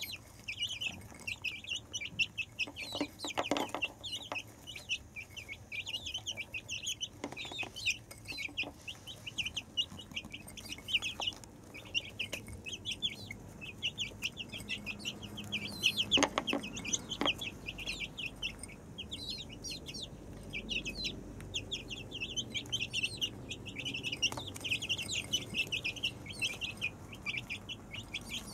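Silkie chicks peeping continuously in rapid, short, high chirps while they feed. A few louder knocks come a few seconds in and again around the middle, likely beaks striking the feed bowl.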